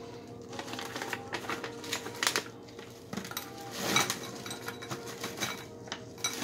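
A crinkly snack bag of pretzels rustling and crackling as it is handled, with irregular light clicks and rattles of the hard pretzels inside.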